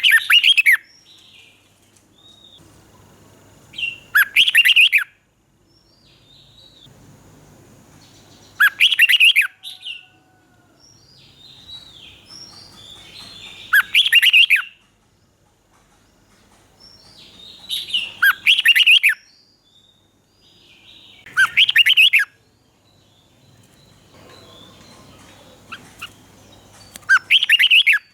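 Red-whiskered bulbul singing. It repeats a short, loud phrase of warbled notes about every four to five seconds, seven times in all, with softer chirps between the phrases.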